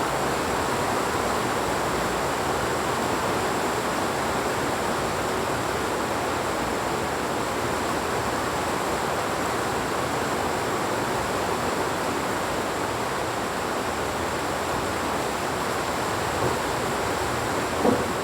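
Heavy rain falling steadily, an even rushing hiss with a faint high steady tone in it; a brief short sound rises above the rain near the end.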